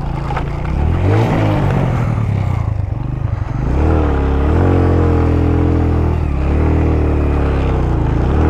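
Suzuki GS150SE's single-cylinder four-stroke engine running under a rider on a rough dirt track, its revs rising and falling with the throttle. It eases off about two to three seconds in, then picks up again and holds fairly steady.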